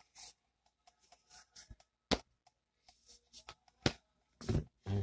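A 78-card tarot deck shuffled by hand, overhand rather than riffled: soft scattered card rustles and taps, with sharper clicks about two and four seconds in and a few low thumps near the end.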